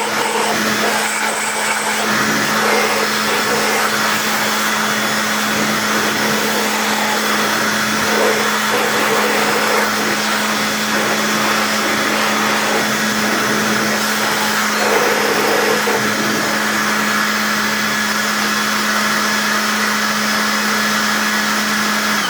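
Cordless battery-powered garden blower running steadily at full speed, a loud rush of air with a steady hum and a high whine, blowing fine dust out of a stick vacuum's main body. It is switched off at the very end, its whine falling away as the fan winds down.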